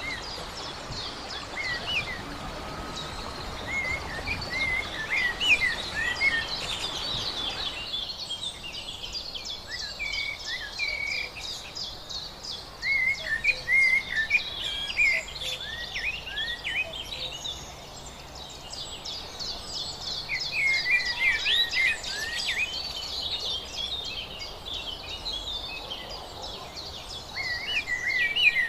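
A chorus of songbirds chirping and calling, with many short, quick notes overlapping, over a steady rushing background. The background drops off abruptly about a quarter of the way in, leaving the birds clearer.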